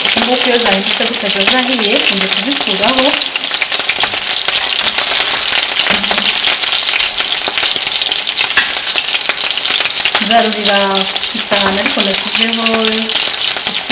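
Meatballs sizzling steadily as they fry in shallow oil in a nonstick frying pan, with short scrapes and clicks of a metal slotted spatula turning them and lifting them out.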